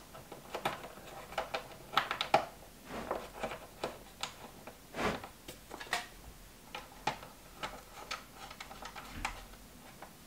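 Irregular small clicks and taps of a plastic cover being pressed onto a bus bar and of hands handling the battery cables, with a slightly stronger knock about five seconds in.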